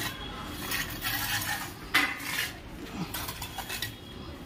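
Irregular light clinks and knocks of hard objects, a handful of separate strikes spread unevenly over a few seconds.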